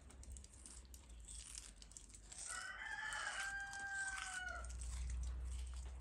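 A rooster crowing once, a long call with a drawn-out falling end about two seconds in. Faint snips of large scissors cutting through the fins of a big fish.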